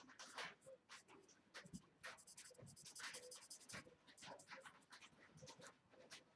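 Faint scratching of an alcohol marker's tip on cardstock in many short, quick strokes, several a second.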